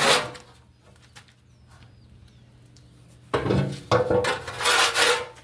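Metal trays clattering and scraping as they are handled, once briefly at the start and again for about two seconds in the second half. Faint bird chirps in the quiet between.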